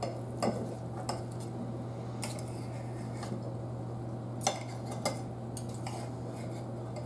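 Steak knife and fork clinking and scraping against a metal platter while cutting a rib eye steak, in a handful of scattered sharp clicks over a steady low hum.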